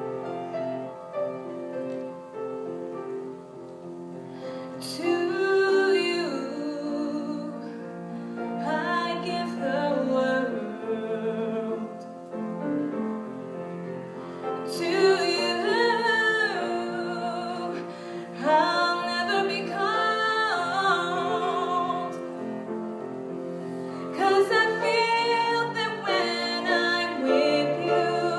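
A solo female voice singing a slow song with piano accompaniment, in separate phrases with vibrato on the held notes. The piano plays alone for the first few seconds before the voice comes in.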